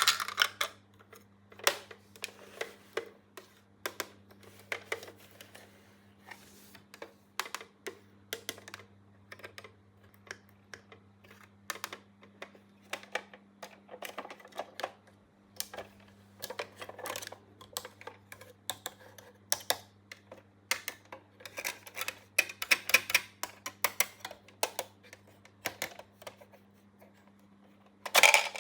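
Small plastic toy pieces being handled, set down and clicked together in irregular light clicks and short rustles, with a steady low hum underneath.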